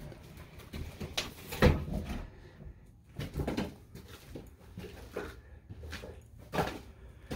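Footsteps climbing a stripped wooden staircase strewn with plaster rubble: irregular knocks and crunches, one step every second or so.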